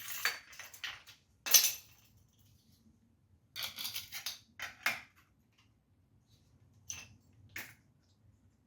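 Metal tools and parts clinking and clattering in short bursts, a few handfuls of sharp knocks and rattles with pauses between.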